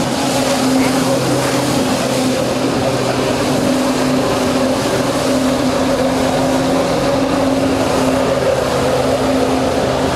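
Personal watercraft engine running steadily at high revs to pump water up the hose of a Flyboard, with the hiss and spray of the board's water jets. The engine pitch stays nearly constant throughout.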